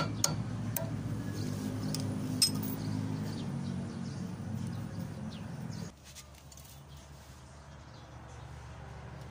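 A few light metal clicks and clinks from hand work on a truck's steering-knuckle parts, over a low steady hum that drops away suddenly about six seconds in.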